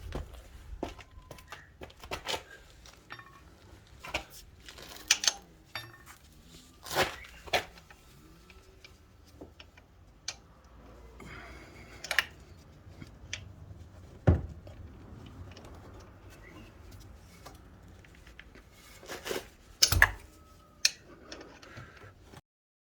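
Metal hand tools clinking and knocking during work on a car's drive belt: irregular sharp clicks and clanks, with two louder knocks about fourteen and twenty seconds in.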